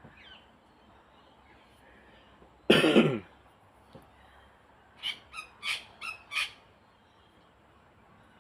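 Bird calls: one loud harsh call about three seconds in, then a quick run of five short calls.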